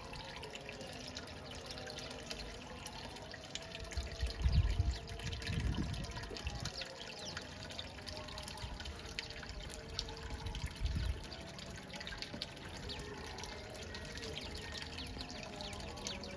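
Water trickling and dripping steadily, with many short high ticks over it. A few heavy low bumps come about four to six seconds in and again near eleven seconds.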